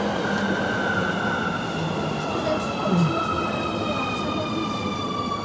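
Underground metro station ambience with a train's electric whine slowly falling in pitch, over a steady hum and faint passenger voices.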